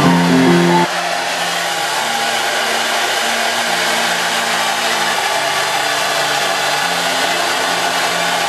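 Guitar music for about the first second, then a handheld hair dryer running steadily with a rushing hiss of air, blowing the hair at the roots.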